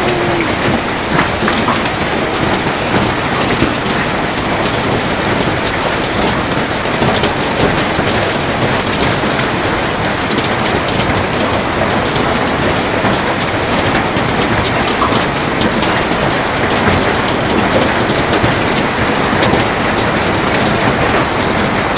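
Heavy rain mixed with hailstones pelting down: a loud, steady hiss with many sharp little ticks of hail striking the roofs and street.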